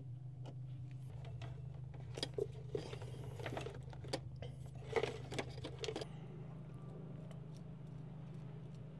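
Faint clicks, scrapes and rustling of wires and small screwdrivers being handled, bunched in the middle, over a steady low hum.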